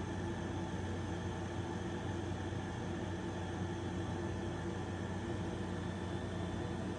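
Steady hum with a few fixed low tones over an even hiss, like a fan or small motor running without change.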